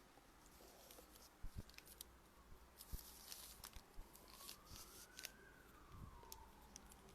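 Near silence: faint scratching and light taps of a paintbrush working paint onto a wooden switch plate, with a faint tone that slowly rises and falls once in the second half.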